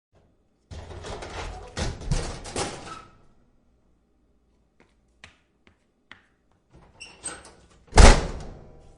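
A door being worked: a couple of seconds of handle and latch rattle with a few knocks as it opens, some light clicks, then the door shut with a loud thud near the end.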